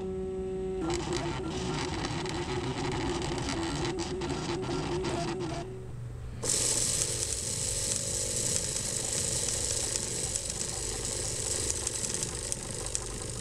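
Makerbot Thing-o-Matic 3D printer running, its motors whining in steady tones that shift in pitch as the head moves. About six seconds in this cuts to the hissy buzz of a small DC motor shaking a 3D-printed vibratory funnel, with the plastic Perler beads inside rattling fast.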